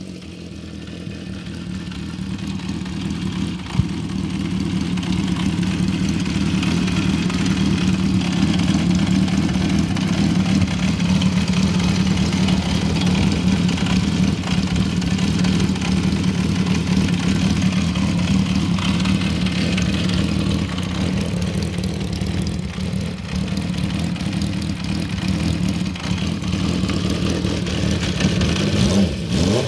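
1972 Honda CB350 Four's air-cooled inline four-cylinder engine idling steadily through its four exhaust pipes, growing louder over the first few seconds.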